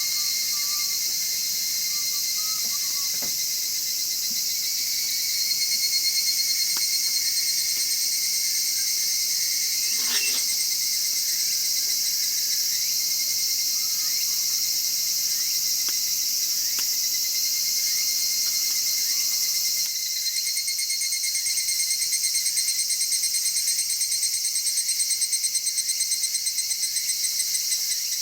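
Crickets chirring in several overlapping, steady high trills, with a more strongly pulsing trill coming up about two thirds of the way in. A few short cracks from the wood fire.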